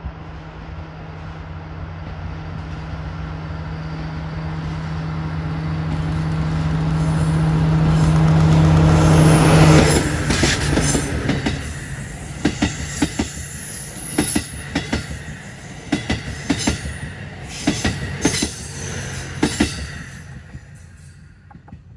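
DD51 diesel-hydraulic locomotive, with its twin V12 diesel engines, approaching and passing close by: its engine drone builds steadily to a peak about ten seconds in, then drops as the passenger coaches behind it roll past, their wheels clacking over rail joints in repeated pairs before the train fades away.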